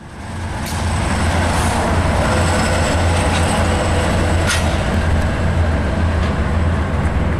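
Twin Cities & Western diesel locomotives passing, their engines running with a steady low drone over rolling wheel noise, with a few faint metallic clicks. The sound fades in over the first second.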